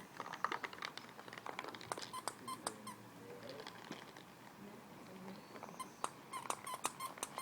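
Toy fox terrier puppies playing tug-of-war over a toy: short high squeaks and scattered quick clicks and taps, busiest about two seconds in and again near the end.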